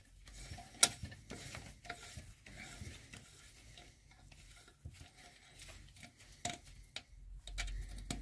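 Hand tools clicking and scraping lightly and irregularly on metal, with a few sharper clicks, as work on a freshly tapped bolt thread finishes.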